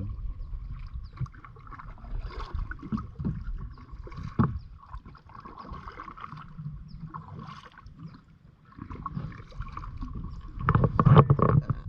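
Kayak paddling: paddle blades dipping and splashing and water washing along the hull. A few sharp knocks come through, with a louder stretch of splashing and knocks near the end.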